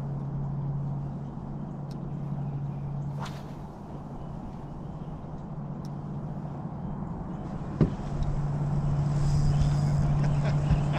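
Bow-mounted electric trolling motor humming at a steady low pitch, switching off about three and a half seconds in and on again about eight seconds in. A single sharp click comes just before it restarts.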